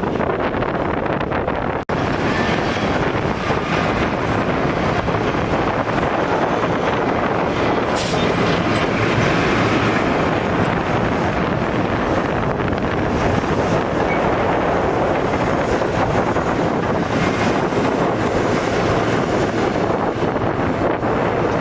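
Heavy earthmoving machinery running steadily, a dense continuous mechanical rumble with a faint high whine. There is a brief break just under two seconds in.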